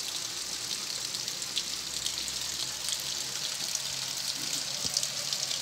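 Steady rain falling: a dense, even hiss of drops with many small individual ticks of drops landing.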